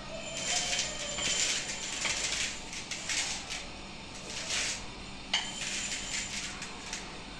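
Dry rice grains poured from a bag into a plastic bowl in several short rattling bursts, with one sharp click about five seconds in.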